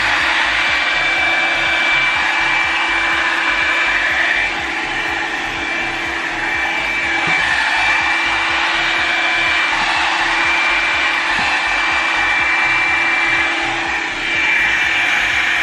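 Revlon One-Step hair dryer brush running on its low setting: a steady, loud blowing with a high whine over it. It switches off near the end, and the whine falls away.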